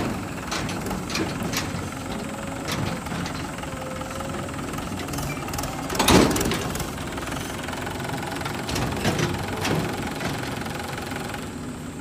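Mahindra 575 DI tractor's four-cylinder diesel engine running steadily. Several sharp knocks sound over it, the loudest about six seconds in.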